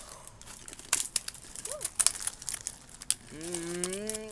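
Takis chip bag crinkling and chips crunching in scattered sharp clicks. Near the end a person holds a low moaning hum for about a second.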